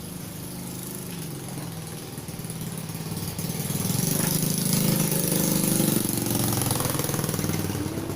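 A motor vehicle engine running, growing louder a few seconds in and easing off slightly near the end.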